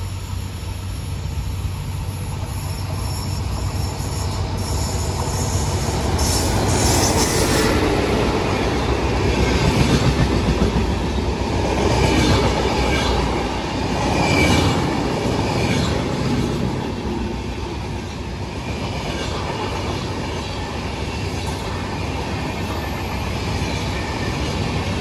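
Passenger train of double-decker coaches hauled by a WAP7 electric locomotive rolling past on the near track, the wheels clattering over the rails. The rumble swells to its loudest about ten seconds in as the locomotive and first coaches go by, then holds at a steady level as the rest of the coaches pass.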